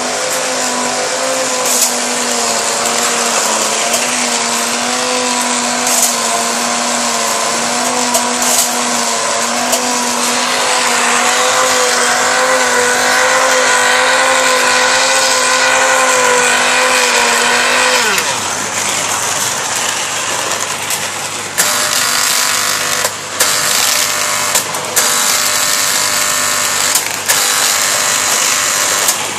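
Electric motor of a Lionel toy-train coal-conveying accessory running with a steady, slightly wavering hum. About two-thirds of the way through, the pitch falls away. It is followed by a buzzing run broken by several sharp knocks.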